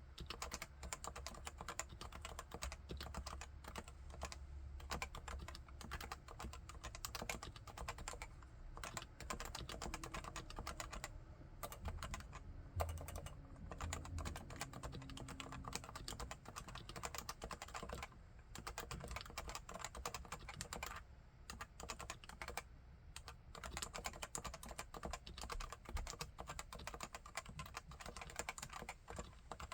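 Continuous fast typing on a Leopold FC980C keyboard with 45 g Topre electrostatic capacitive switches, its keys clicking in quick runs broken by a few short pauses.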